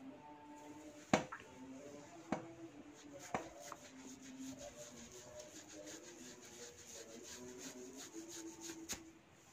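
Hair cracking: sections of scalp hair tugged sharply, each pull giving a sharp crack. Three loud cracks come about a second apart in the first few seconds and another near the end, with many fainter crackles between.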